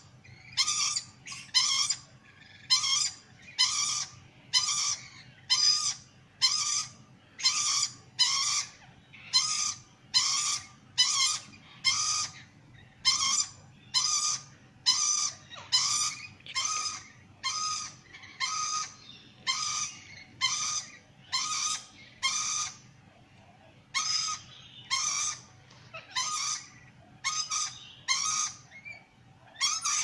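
Sulphur-crested cockatoo giving short, harsh screeches over and over, about one a second, with a brief pause about three-quarters of the way through.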